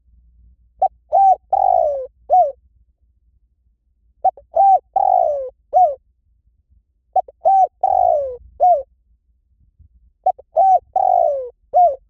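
Spotted dove cooing: four matching phrases about three seconds apart, each two short coos, a longer falling coo, then a short closing coo.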